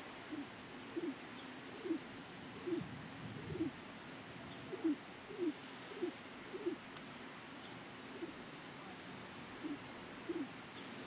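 Birds calling: short, low cooing notes repeated about once or twice a second, with a high chirp about every three seconds, over a steady hiss.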